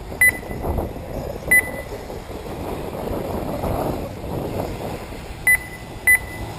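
RC race lap-timing system giving short, high electronic beeps as cars cross the timing line: two about a second and a half apart, then two more close together near the end. Underneath is a steady rush of wind and track noise.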